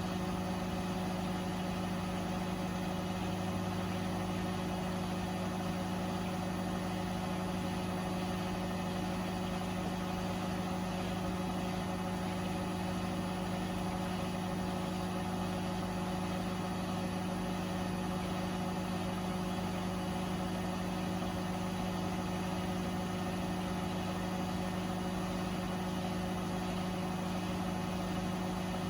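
Beko WTK104121A washing machine spinning at a steady speed: a constant motor hum with no change in pitch or level.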